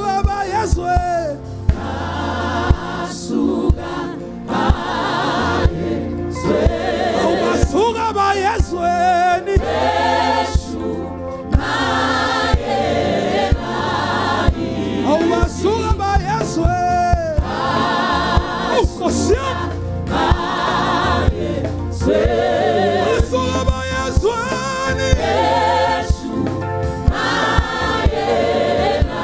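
Live gospel worship song: a male lead voice and a choir singing over keyboards, bass and a steady beat.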